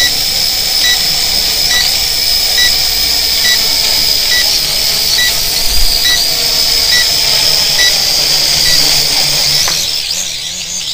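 TXD 8S toy quadcopter hovering, its propellers giving a steady high whine that wavers slightly. A short electronic beep repeats a little faster than once a second. Near the end the whine wobbles and begins to die away as the drone is caught by hand.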